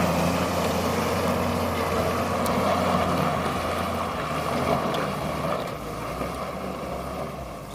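Minibus engine running with a steady low hum as the bus drives away on a dirt road, its sound slowly fading as it moves off.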